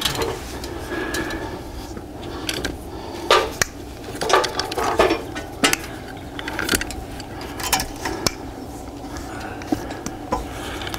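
Scattered light metallic clicks and knocks, about ten of them at irregular intervals, over a faint low hum, from hands working the aluminium awning hardware as new fabric is fed along the rail and rolled onto the roller tube.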